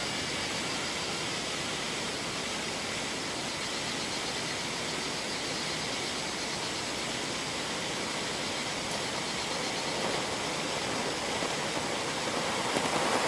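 A steady, even hiss, with a motorcycle coming up the road and growing steadily louder over the last few seconds.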